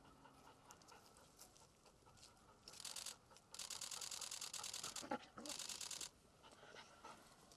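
Camera shutters firing in rapid bursts: three runs of fast, even clicking starting about three seconds in, the middle run the longest.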